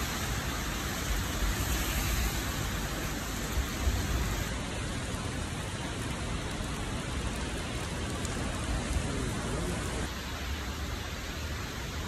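Heavy rain falling steadily, an even hiss of rain on wet pavement.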